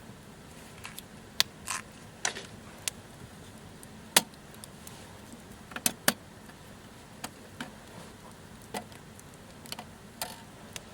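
Irregular light clicks and clinks of small hard objects being handled, about fifteen spread over the span, over a faint steady background.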